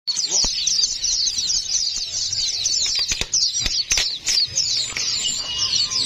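Many fledgling songbirds chirping in rapid, high, overlapping begging calls, with a few sharp taps about halfway through.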